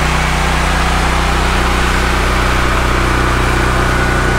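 Honda-powered Black Max 7000-watt portable generator running at a steady, even speed, running good after its start.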